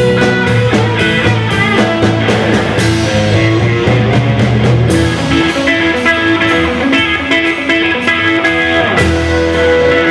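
Rock band playing an instrumental passage: a Telecaster-style electric guitar plays a lead line of quick single notes over bass and drums.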